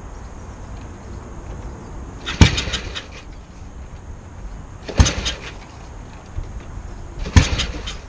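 1954 Matchless G3/LS single-cylinder engine being kick-started three times, about two and a half seconds apart: each kick is a sharp thump with a brief mechanical clatter as the engine turns over, and it does not catch and run.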